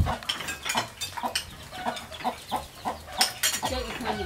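Chickens clucking in short, uneven calls, two or three a second, with a few sharp clinks of spoons on bowls.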